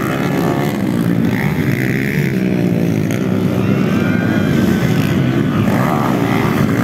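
Several underbone motorcycle engines racing on a dirt motocross track. Their overlapping engine notes rise and fall as the riders open and close the throttle.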